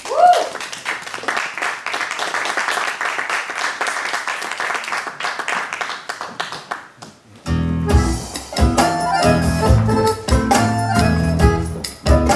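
Audience applause, with a brief rising whoop right at the start. About seven and a half seconds in, the next tango piece starts with a strong, steady bass beat.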